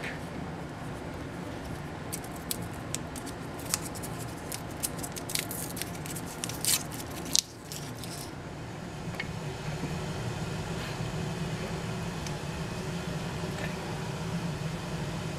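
Paper wrapper of a Mentos roll crinkling and tearing as it is opened by hand: a run of sharp, irregular crackles. Near the middle this gives way to a steady low background noise with a few faint ticks.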